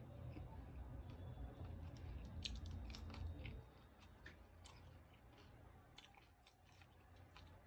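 Faint chewing of food close to the microphone, with small wet mouth clicks scattered through it, over a low rumble that drops away about three and a half seconds in.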